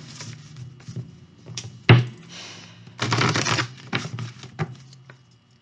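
A deck of tarot cards being shuffled and handled: sharp taps and flicks of the cards, with a dense burst of riffling about three seconds in.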